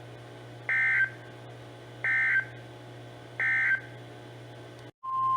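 Three short bursts of warbling digital data tones from a NOAA Weather Radio receiver, about 1.35 s apart: the SAME end-of-message code that closes an Emergency Alert System message. They play over a low hum. Just before the end the audio drops out briefly, then the steady single-pitch NOAA Weather Radio alert tone starts, opening the next warning.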